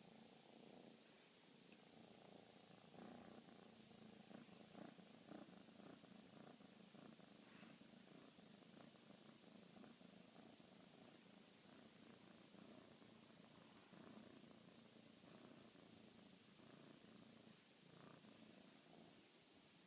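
A pet snoring softly: a faint, steady low rumble that thins out near the end.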